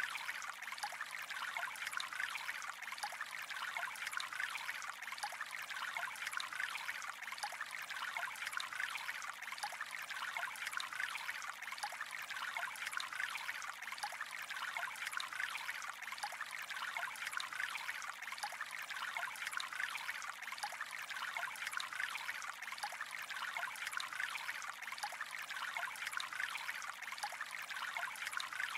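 Gently flowing water: a steady trickle with a constant fine patter of small splashes, unchanging throughout.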